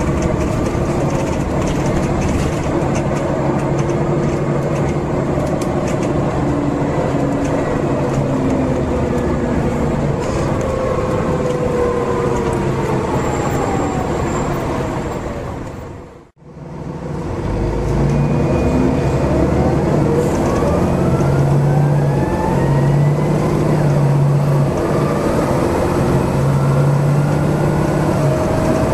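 Volvo Super Olympian bus's Volvo D10A diesel engine and ZF 5HP590 automatic gearbox heard from inside the cabin: running with whines falling in pitch. About halfway through the sound fades out briefly, then the bus pulls away again with engine note and whines rising in pitch as it accelerates through the gears.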